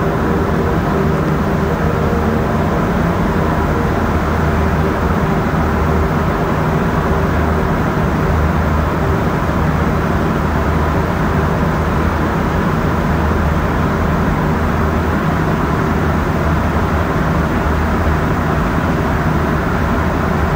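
Rubber-tyred metro train running at speed through a tunnel, heard from inside the car: a steady rolling rumble with the hum of the metro ventilation fans. A few hum tones are strongest in roughly the first five seconds, then ease off.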